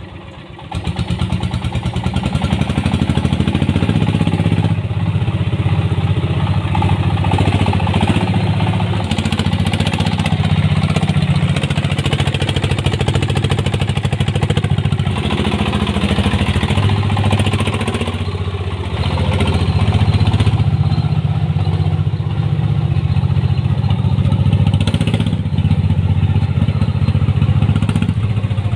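Homemade ledok dump truck's 24 hp diesel engine running hard under a heavy load, with a rapid, even chugging beat. It swells sharply less than a second in as it is throttled up, then keeps running loudly.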